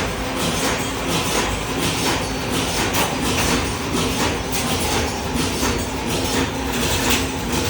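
Bonnell spring mattress machine running: a steady, rhythmic mechanical clatter of about three strokes a second over a constant motor hum.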